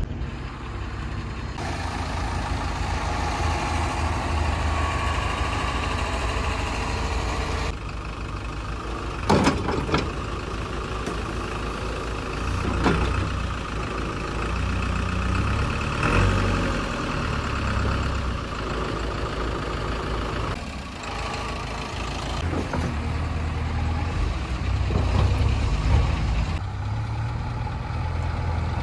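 Heavy diesel engines of a JCB 3DX backhoe loader and a Tata tipper truck running at idle and low revs, with a few sharp knocks. The engine sound changes abruptly several times.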